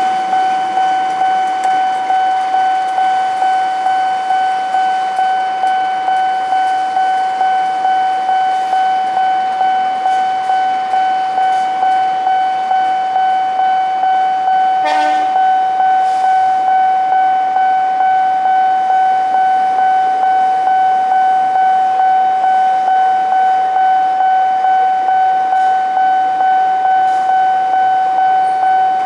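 Railway level-crossing warning bell ringing continuously in quick, even, repeated strokes, about one and a half a second, while a passenger train's coaches pass over the crossing. A brief horn toot sounds about halfway through.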